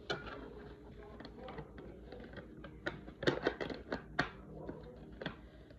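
Hard plastic toy pieces clicking and tapping as they are handled: irregular light clicks, with a cluster of sharper ones near the middle and one more near the end.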